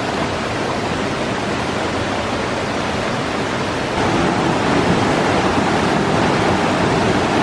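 Fast-flowing river water rushing over rocks: a loud, steady rush that gets louder about four seconds in.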